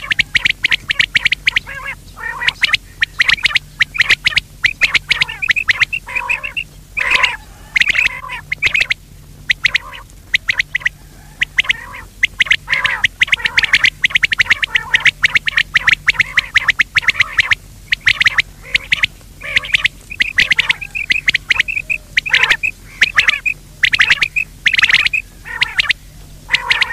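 Quail calling: rapid bursts of short, sharp notes, repeated over and over with brief pauses, over a low steady hum. This is a recorded quail call of the kind played as a lure to draw quail into nets.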